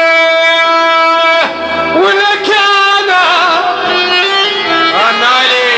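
Middle Eastern music with a long held note, then a moving, ornamented melody with quick trills.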